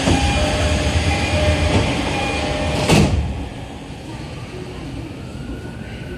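Sliding doors of a JR East E231-series commuter train closing: short repeated chime tones, then the doors shut with one sharp bang about three seconds in, after which the car is clearly quieter.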